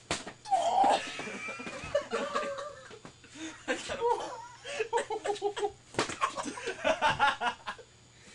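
A wound-up towel snapped like a whip, with a sharp crack right at the start and another about six seconds in, each followed by a yell and a group of young men laughing hard.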